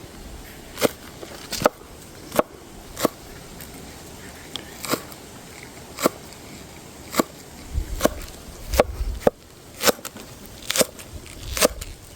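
Sharp single knocks about once a second, with gusts of wind rumbling on the microphone.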